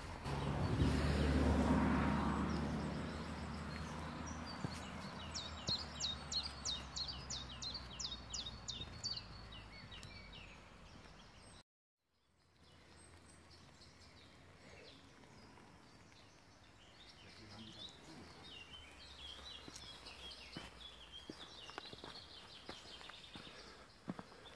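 Outdoor woodland ambience: a low rumble swells and fades in the first few seconds, then a songbird sings a quick run of repeated high, falling notes for a few seconds. After a short dropout, fainter bird calls continue over a quiet background.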